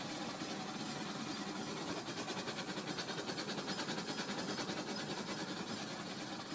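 Two Rail King toy trains running on plastic track: a steady motor whir with rapid clicking from the wheels, a little louder in the middle.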